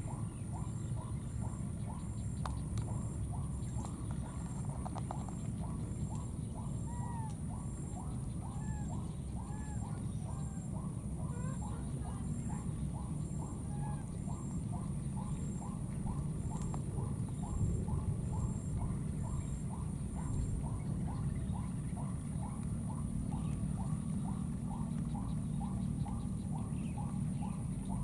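Wildlife calling: a fast, even train of short chirping calls, about two to three a second, over a steady high insect-like drone and a low rumble. A higher, fainter chirp repeats a little over once a second and stops about two-thirds of the way through.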